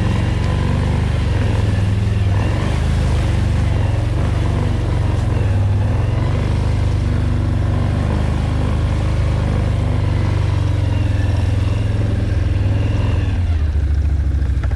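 ATV engine running steadily at low speed while the quad is eased along a muddy trail, its pitch dropping lower near the end.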